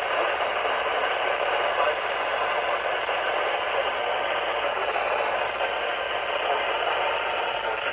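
Steady radio static hiss from a weather radio receiver between broadcast messages.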